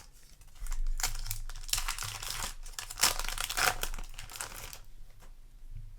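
Foil wrapper of a Yu-Gi-Oh! Maze of the Master booster pack crinkling as it is torn open by hand, a dense crackle lasting about four seconds that dies down near the end.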